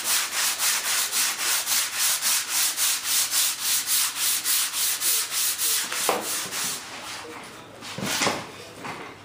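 Hand sanding of epoxy filler on a composite model-jet wing: quick, even back-and-forth strokes, about four a second. The strokes stop about two-thirds of the way in, and two or three slower single strokes follow.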